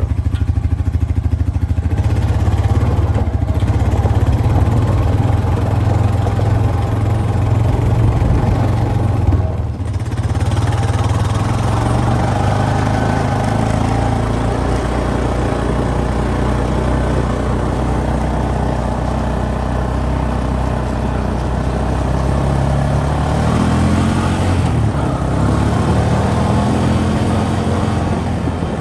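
ATV engine running steadily under way, with a brief dip about ten seconds in and the engine pitch rising and changing a few seconds before the end.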